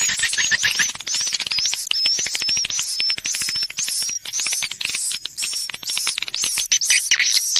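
Recorded edible-nest swiftlet calls, a lure sound for swiftlet houses: dense rapid dry clicking with short high chirps repeated several times a second.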